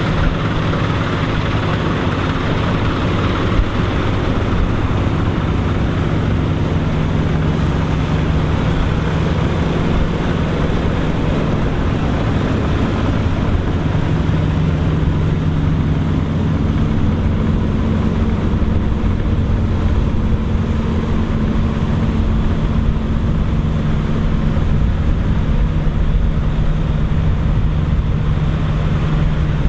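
Dronningborg D900 self-propelled combine harvester running steadily while harvesting barley: a continuous low engine hum over a broad mechanical noise.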